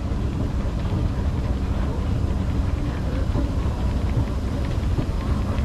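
Escalator running: a steady low rumble from its step and drive machinery.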